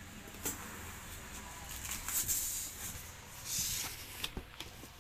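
Corrugated cardboard carton being opened by hand: its flaps scrape and rustle, with scattered light knocks and two brief swishes of cardboard sliding about two and three and a half seconds in.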